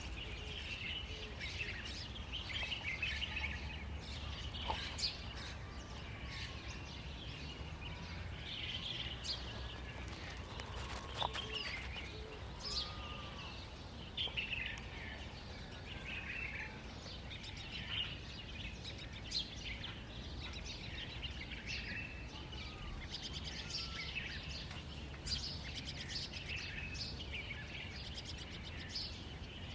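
Small birds chirping and twittering again and again over a steady low background rumble, with a few faint taps.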